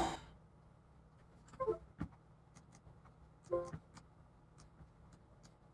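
Faint quiet room with a handful of small clicks and two brief pitched blips, a little under two seconds apart.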